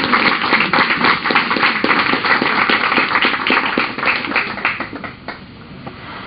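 A congregation applauding, many hands clapping at once, dying away about five seconds in.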